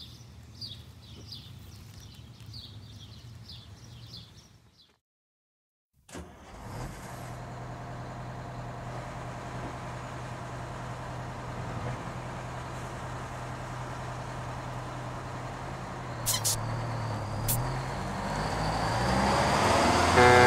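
Faint bird chirps repeating quickly for about five seconds, then, after a short break, a bus's diesel engine idling steadily at the rear while it puffs white exhaust smoke. Two sharp clicks come near the end.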